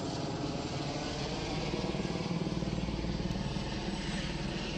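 Rescue helicopter circling overhead: a steady, rapid beat of the rotor blades over the engine's drone.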